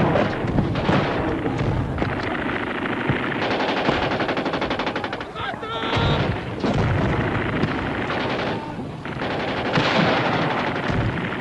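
Battle sound: automatic gunfire in rapid, fast-repeating bursts mixed with scattered shots. The firing is densest a few seconds in and again near the end.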